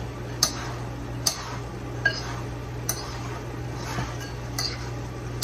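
A spoon clinking against a pan with each stirring stroke: a sharp click about every second, evenly spaced, over a steady low hum.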